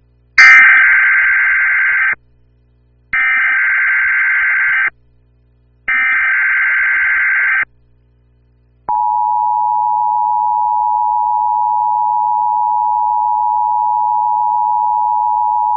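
Emergency Alert System header: three identical bursts of SAME data tones, each about two seconds long, a second apart. About nine seconds in, the steady two-tone EAS attention signal begins and holds; it opens a Tornado Watch alert.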